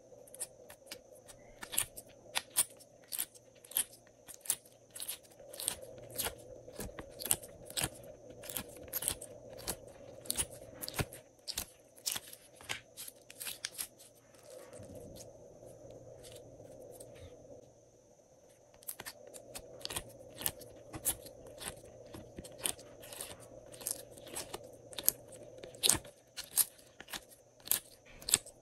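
Glossy slime being squeezed, kneaded and pressed out of a silicone mould by hand, giving a quick, uneven run of sharp wet clicks and pops, with a quieter spell about halfway through.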